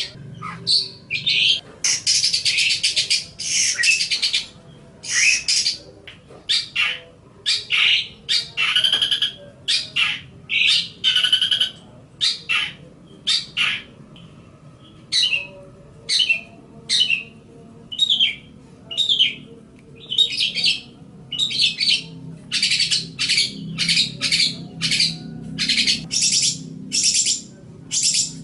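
Long-tailed shrike (cendet) singing a rapid, varied string of short high chattering and scratchy notes, broken by brief gaps. A faint low hum runs underneath.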